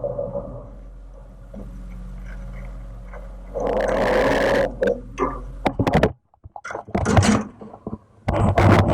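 A steady low machine hum for the first few seconds, then a louder scraping rush of about a second, a string of knocks and clicks, and a sudden cut to near silence just after the middle before more knocks and clattering near the end.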